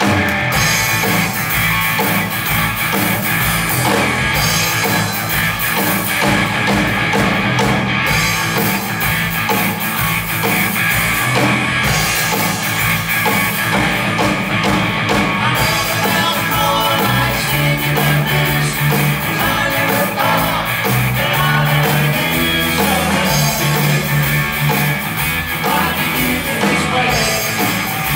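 Live rock-and-roll band playing, with electric guitars and a drum kit, and a bass line stepping from note to note. It starts all at once and keeps a steady beat.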